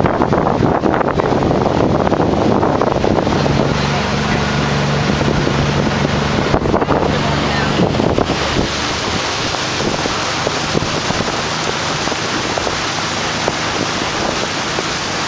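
Motorboat running at speed, with its engine hum under wind buffeting the microphone. From about eight seconds in, the even rush of water churning along the hull takes over and the engine tone fades into it.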